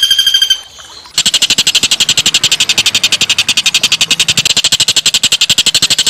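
Recorded song of a small songbird used as a masteran: a clear, pulsing trill stops about half a second in, and after a short pause a fast, rough rattle of even buzzy notes, about a dozen a second, takes over.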